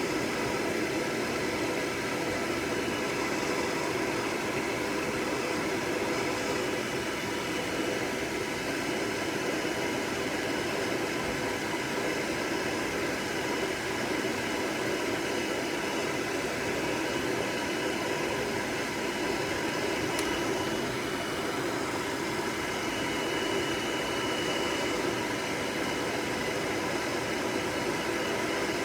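Electric hair dryer running steadily: an even rush of blown air with a steady motor whine.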